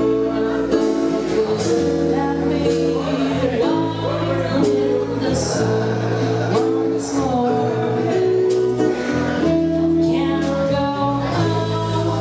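Live jazz band playing: a woman's singing over tenor saxophone, electric and acoustic guitars, bass and drums, with held melody notes and cymbal strikes.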